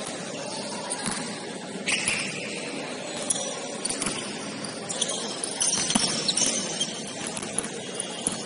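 Basketball court sounds: short high sneaker squeaks on the floor and a few dull thuds of the ball over a steady hall noise.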